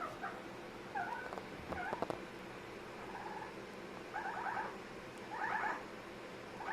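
Amazon parrot making a string of short calls, about six in all, the later ones rapid and pulsing.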